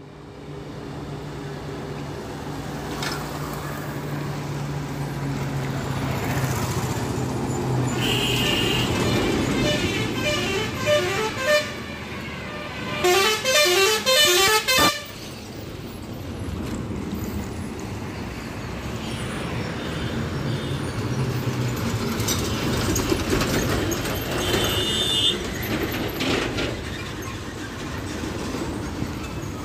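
Heavy diesel goods trucks and motorbikes driving past, the engine hum building as a truck approaches. Truck horns sound over the traffic: short high toots about a third of the way in, a loud run of horn notes changing in pitch about halfway through, and another short high horn near the end.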